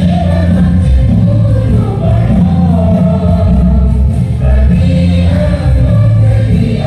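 Many voices singing a song together in chorus, over music with strong, steady low notes.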